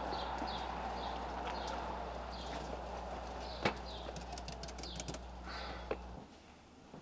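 Birds chirping repeatedly over a steady low hum, with a few sharp clicks in the second half as the buttons of a door intercom keypad are pressed. The hum cuts off shortly before the end.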